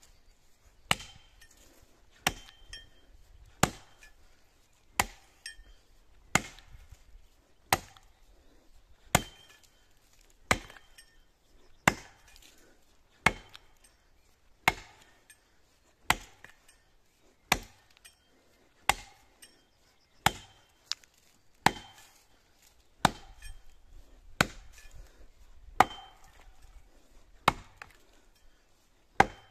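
Axe chopping into the base of a standing pine tree, a steady series of sharp wooden strikes about one every second and a half as the felling notch is cut deeper.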